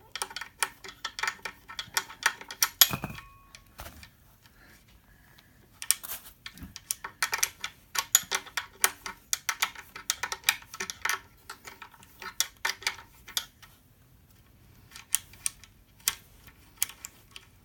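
Runs of light metallic clicks and clinks, broken by short pauses, as an open-ended spanner is fitted and turned again and again on an aluminium push button to unscrew it from the scooter's holder plate. One clink about three seconds in rings briefly.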